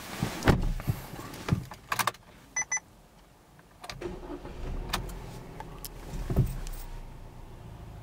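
Hyundai i20 starting up: two short electronic beeps, then the engine cranks and fires, with a surge about 6.4 s in, and settles into a steady idle. Knocks from handling inside the cabin come first.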